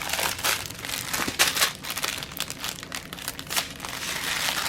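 Plastic packaging of a diamond painting kit crinkling continuously as it is handled and opened, with a few sharper crackles about a second and a half in.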